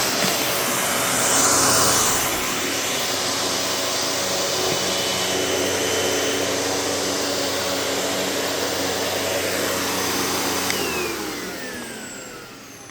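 Panasonic Performance Plus Platinum MC-UG583 upright vacuum cleaner running steadily, then switched off about eleven seconds in, its motor whine falling in pitch as it winds down.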